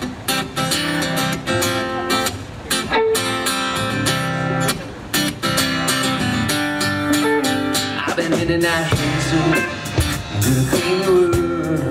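A live rock band playing without vocals: strummed acoustic guitar with electric guitar and bass guitar over a drum kit.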